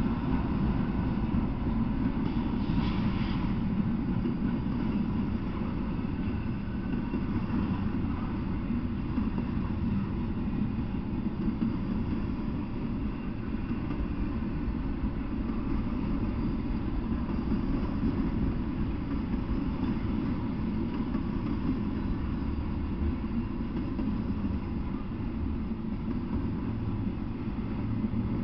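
Freight train passing close by: a steady low rumble of steel wheels on rail as diesel locomotives give way to a long string of double-stack intermodal container cars.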